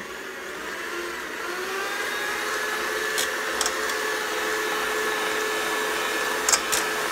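Electric hand mixer running, its beaters whisking eggs in a stainless steel pot. The motor whine climbs in pitch over the first couple of seconds and then holds steady, with a few sharp clicks.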